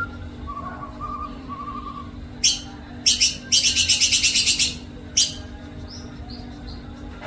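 White-rumped shama (murai batu) singing: soft warbled notes, then a few loud sharp calls and a fast rattling run of about ten notes a second lasting just over a second, followed by soft high whistles near the end. A steady low hum runs underneath.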